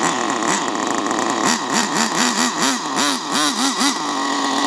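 Small nitro (glow-fuel) RC car engine running. It idles at first, then gets a rapid series of throttle blips, roughly three revs a second, for a couple of seconds before settling back to a steady idle.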